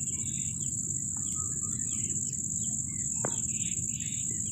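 Steady high-pitched chorus of field insects such as crickets, with scattered short bird chirps over a low rumble.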